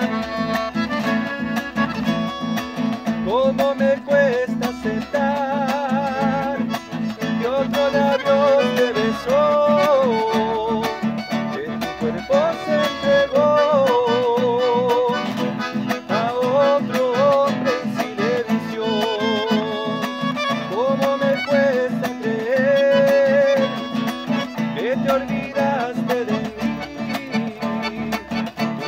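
A classical guitar strumming and a piano accordion playing a song together, with a man singing the melody over them in a wavering voice that scoops up into notes.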